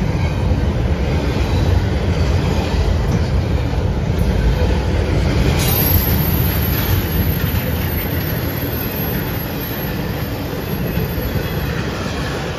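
Norfolk Southern freight train of empty well cars rolling past: a steady rumble of wheels on rails, with a thin high-pitched wheel squeal joining about halfway through and stopping near the end. The rumble slowly fades toward the end.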